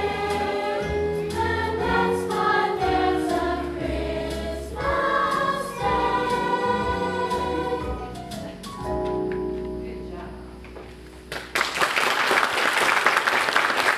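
Children's choir singing; the song ends on a held note that fades, and about three quarters of the way through the audience breaks into applause.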